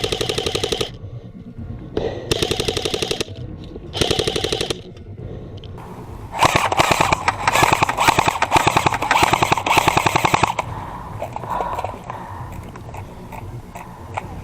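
Airsoft electric rifles firing full-auto bursts. There are three short bursts in the first five seconds, then one longer burst of about four seconds.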